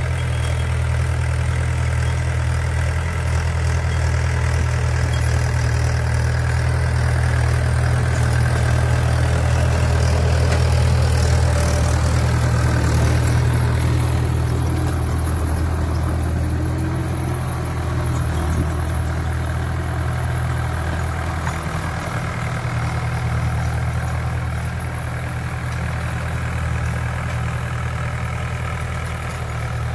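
Mahindra 475 DI tractor's four-cylinder diesel engine running steadily while it pulls a rotavator through dry soil. It grows louder as the tractor passes close, about ten seconds in, then eases off as it moves away.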